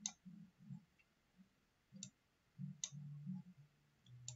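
Computer mouse clicking a few times, faint sharp clicks spread a second or so apart, with soft low thumps of the mouse moving on the desk.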